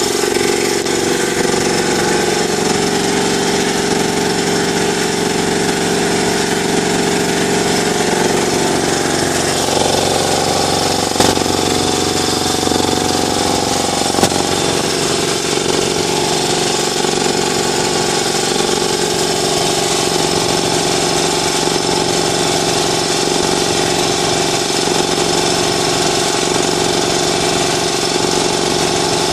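Ingersoll Rand TS4N5 80-gallon two-stage air compressor running steadily, its 5 hp 230 V electric motor driving the pump to build tank pressure after kicking on. There are two brief clicks near the middle.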